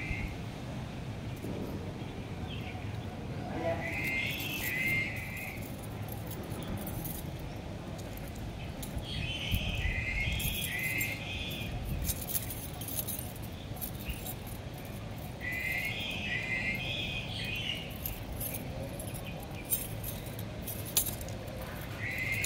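A bird in the background repeats the same short, high, wavering phrase about every five to six seconds, four times in all, over a steady outdoor hum, with light scattered clicks and rattles.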